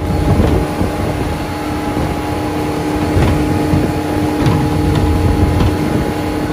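Suzuki 140 outboard motor running at speed with a steady whine, under a loud rush of wind and water spray off the hull.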